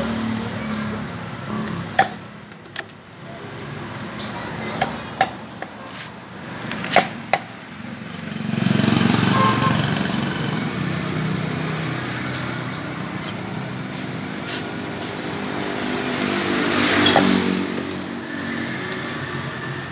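A cleaver chopping catfish on a wooden chopping block, a series of sharp knocks through the first seven seconds or so. A passing motor vehicle engine swells in about eight seconds in and fades again, and another passes near the end.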